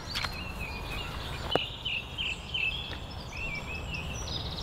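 Small birds singing a run of short, repeated chirps over a steady low outdoor rumble, with one sharp click about a second and a half in.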